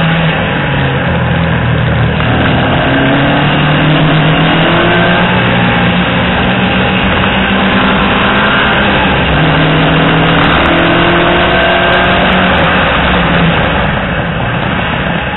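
Peugeot 205 GTI 1.6's four-cylinder engine driven hard on track, revs climbing and dropping back several times as it shifts up through the gears, easing off near the end.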